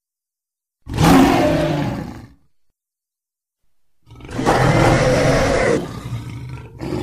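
Two roars of a custom Giganotosaurus sound effect layered from dinosaur, monster and lion sounds. The first lasts about a second and a half. After a pause comes a longer one, whose lower part carries on for over a second after the higher part cuts off.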